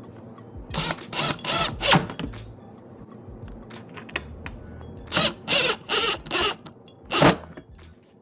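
Cordless drill running in short trigger pulses while driving screws into a dishwasher's lower panel: four quick bursts about a second in, four more a little after the middle, and a last one near the end.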